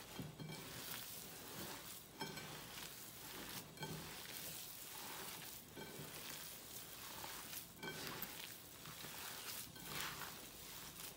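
Bare hands kneading and squeezing raw ground beef and pork mixed with seasonings in a bowl, mixing longganisa sausage filling: a faint, wet squishing that comes and goes in irregular handfuls.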